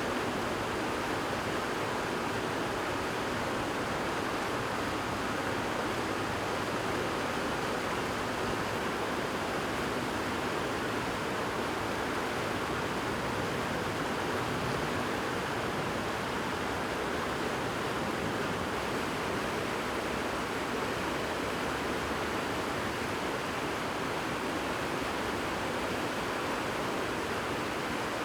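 Fast-moving floodwater rushing: a steady, even noise with no break.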